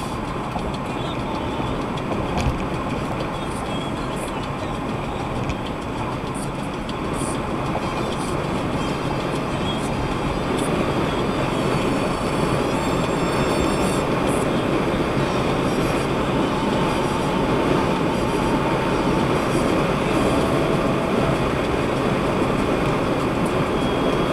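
Steady road and tyre noise with engine drone, heard from inside a car cabin at highway speed, growing slightly louder over the stretch.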